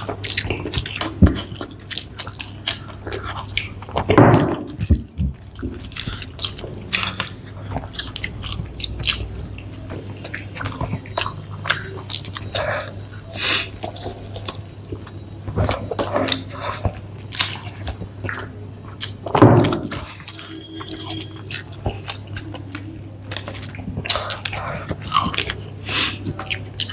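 People eating a burger and french fries close to the microphone: a steady run of wet chewing, biting and crunching sounds, with two louder bites or thumps about 4 and 19 seconds in, over a faint steady low hum.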